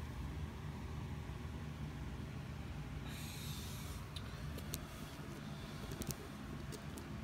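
A steady low hum, with a short rustle about three seconds in and a few light clicks after it.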